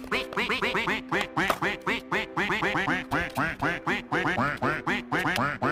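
Playful cartoon-style background music: quick, bouncy, squawky notes repeating several times a second over a few held tones.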